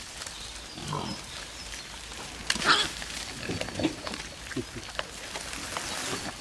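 Wild boars grunting in short, scattered calls, the loudest about two and a half seconds in, among small clicks.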